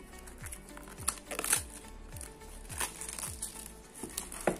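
Plastic shrink-wrap on a phone's retail box crinkling as it is handled and pulled off, with a few sharp crackles, the loudest near the end. Background music with a steady low beat plays underneath.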